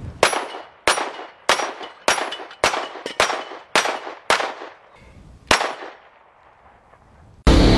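A pistol fired nine times at steel plate targets: eight shots in quick succession, about two a second, then a short pause before a ninth. Each report rings out briefly.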